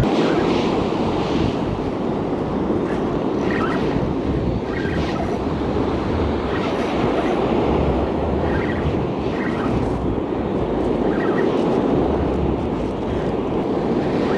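Surf washing onto a stony beach, with steady wind noise on the microphone and faint short clicks now and then.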